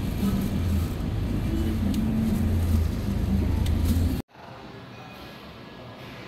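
Low, steady rumble of a vehicle's engine heard from inside the cabin. It cuts off abruptly about four seconds in, giving way to a much quieter room hum.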